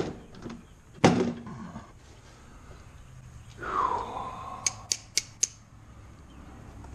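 Handling sounds from work on a mower's plastic discharge chute: two sharp knocks about a second apart, a rustle, then four quick sharp clicks about four a second.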